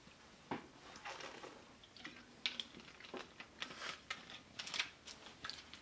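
Swallowing from a drink bottle, then its screw cap being twisted back on: a string of small clicks and scrapes, thicker in the second half.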